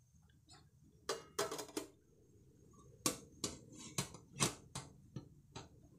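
Metal steamer pot being handled, clinking and knocking: a quick cluster of clinks about a second in, then a string of single sharp clinks roughly every half second.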